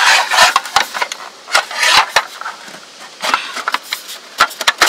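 Aluminium Raichou hangou mess tin's lid clacking and scraping against the pot and its wire bail handle, a string of short clicks and rattles as it is pushed and turned to fit. The lid is on the wrong way round and will not seat properly.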